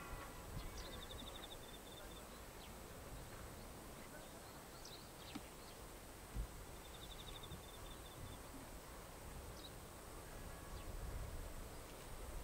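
Faint outdoor ambience with a steady low rumble. A short, high, rapidly pulsing trill comes twice, about a second in and again about seven seconds in.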